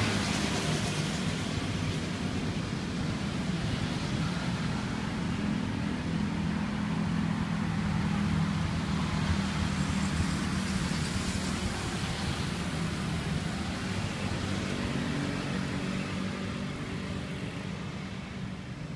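Street traffic: motor vehicles passing, a steady low engine hum with a hiss that swells and fades several times as they go by.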